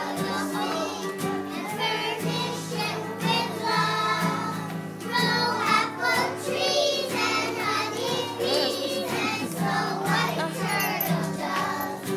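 Young children singing a song together, with an acoustic guitar accompanying.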